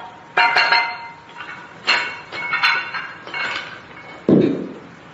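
Metal weights clanking: several sharp, ringing strikes of metal on metal, then a heavier, duller thud about four seconds in.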